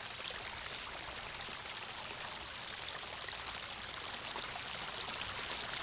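Steady rushing outdoor background noise: an even hiss with no distinct events, rising slightly in level near the end.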